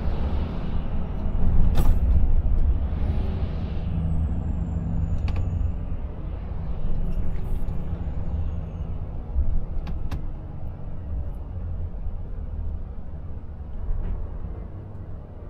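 Cab noise of a Volvo FH 500 Aero truck slowing on a wet road: a steady low engine and road rumble, easing off toward the end. In the first few seconds the hiss of a passing truck's tyres on wet tarmac swells twice, and a few light clicks sound.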